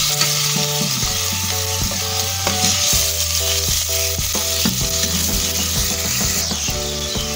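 Shredded chicken and garlic frying in hot oil in a metal pot, sizzling steadily. A spoon stirs and knocks against the pot.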